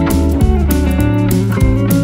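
Background guitar music with a steady rhythm.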